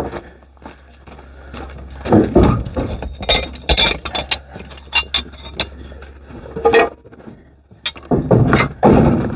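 Irregular metallic clinks and knocks, with louder clanks at about two seconds, three and a half seconds, near seven seconds and again near the end: metal gear being handled around an engine just set down on the ground.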